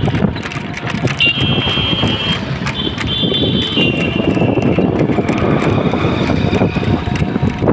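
Cycle rickshaw riding along a city road: a steady rattle and rumble with wind on the microphone and passing traffic. From about a second in, a high thin squeal is heard for several seconds, stepping down in pitch.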